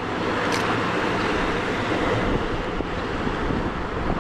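Steady rush of surf on a beach, with wind noise on the microphone.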